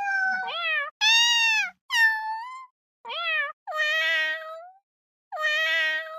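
A cat meowing over and over, about six separate meows in quick succession, each a clear pitched call that bends up and down, with short silences between them.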